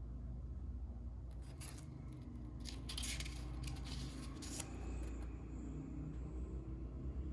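Watch packaging being opened by hand: for about three seconds in the middle, a run of scratchy crinkling and cutting noises, over a low steady hum.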